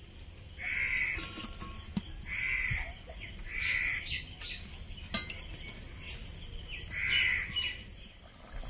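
A crow cawing four times, the calls spaced a second or more apart, with a couple of faint sharp clicks in between.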